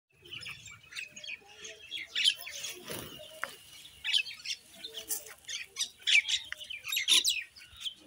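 A flock of common mynas calling over one another: a busy, overlapping jumble of short chirps and calls, several at a time, with a few louder calls standing out.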